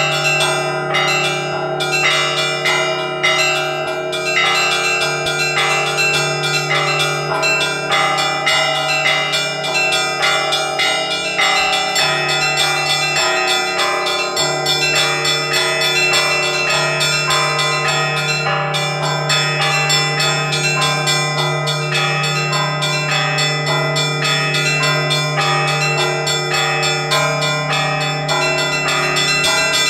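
Orthodox cathedral bells rung in a festive Easter peal: many small bells struck in quick, dense patterns over the steady hum of a large bell.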